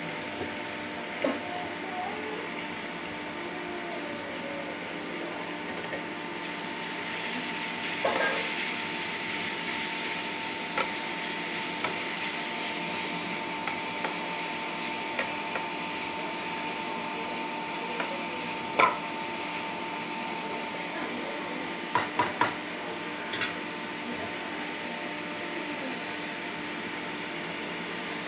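Grated carrot frying in ghee in a steel pan, a steady sizzle, with a spoon knocking against the pan now and then as it is stirred, including three quick knocks close together late on.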